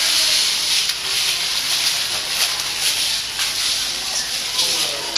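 A steady high hiss, with faint pitched sounds underneath.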